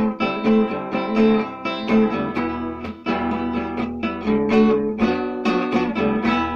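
Acoustic guitar strumming chords in a steady rhythm: the instrumental close of a song.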